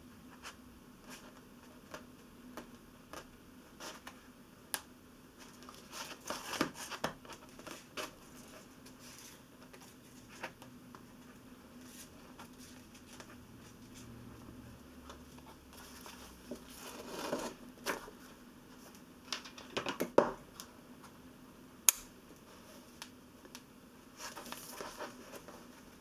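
Close, quiet handling of a hand-sewn book: the paper cover and pages rustle, with scattered light taps and clicks and a few louder rustles as the book block is turned and pressed. Near the end a sharp snip as scissors cut the sewing thread.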